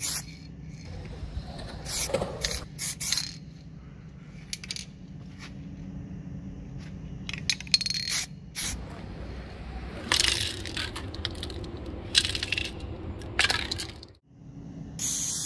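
Irregular short clinks and scrapes, some of them metallic, with a few brief hissing bursts over a low steady background hum.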